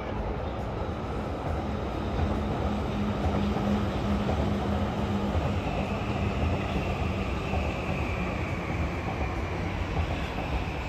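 JR East E235-series Yamanote Line electric train running along an elevated viaduct, a steady rumble of wheels on rail with a low hum. A high, thin whine comes in about six seconds in and holds to the end.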